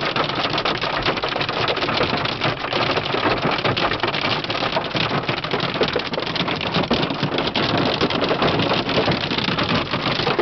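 Golf-ball-sized hail and rain pelting a car's roof and windshield, heard from inside the cabin: a dense, unbroken clatter of countless hits.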